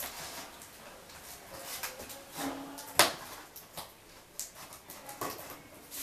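Cardboard TV box being cut open with a small blade: irregular scraping, rustling and clicking on the carton, with a brief squeak and then a sharp snap about three seconds in.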